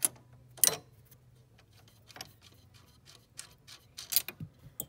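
Irregular sharp metal clicks and taps of a wrench working the nuts off the recliner's steel drive shaft, loudest once near the start and in a quick cluster near the end.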